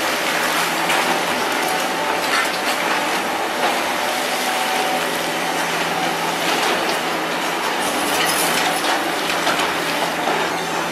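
Hydraulic excavators working a demolition site: diesel engines running with a steady hum under continuous clanking and crunching of steel tracks and attachments on concrete rubble.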